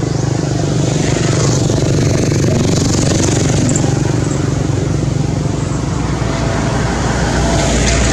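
An engine running steadily, a low even hum with hiss above it.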